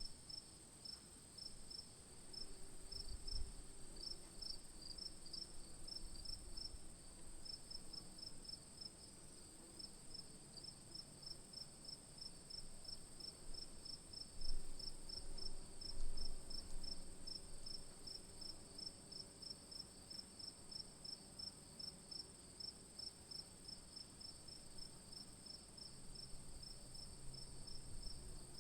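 Crickets singing at night: a steady high trill with regular chirps, about three a second, over it. A few brief low rumbles come and go.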